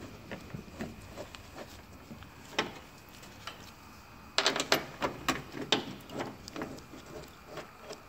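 Scattered light metallic clicks and taps of small parts being handled, with a quick cluster of sharper clicks about halfway through, as the Torx screws for the door latch assembly are fitted by hand into the door edge.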